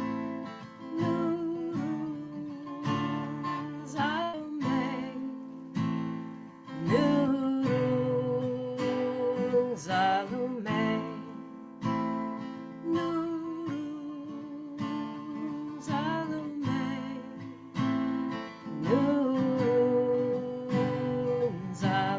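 Strummed acoustic guitar in a slow repeating pattern, accompanying a voice that slides up into long held notes in a devotional chant melody repeating about every twelve seconds.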